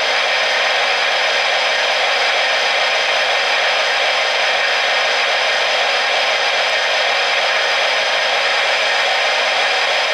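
O-gauge model of a Pennsylvania Railroad S-2 steam turbine locomotive giving off a steady, even hiss from its sound system, with no chuffing beat.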